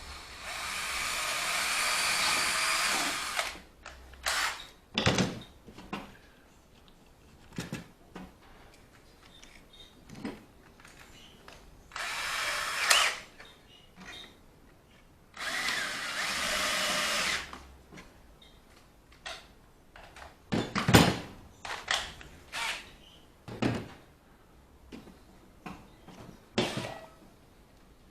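Handheld power tool working wood, run in three bursts: one of about three seconds near the start, two shorter ones in the middle, each with a steady whine. Between the runs come scattered knocks and clatter of tools and wood being handled, the loudest about two-thirds of the way through.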